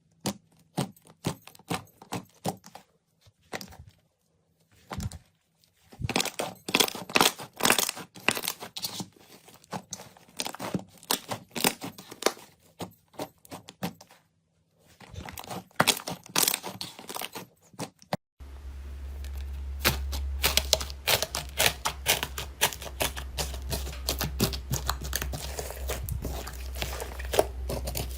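Slime worked by hand, giving runs of quick sticky clicks and crackles with short pauses between them. About 18 seconds in, a new clip starts with denser crackling over a steady low hum.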